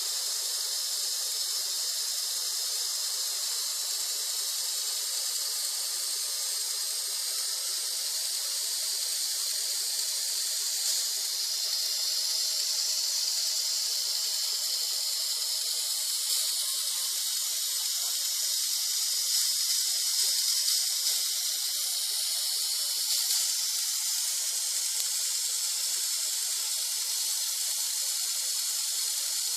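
Small toy electric motor driving the plastic chain of a Kotobukiya M.S.G MW26 model-kit chainsaw: a steady high-pitched whirring hiss that swells a little a couple of times.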